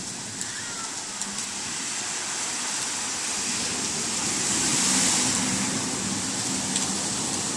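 Steady hiss of rain falling on a wet street, swelling a little about five seconds in, with a faint low hum and a few scattered drips.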